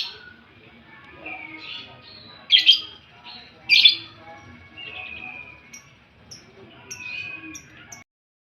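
Young songbird calling: three loud, harsh calls in the first four seconds, then softer drawn-out chirps mixed with short, high ticks.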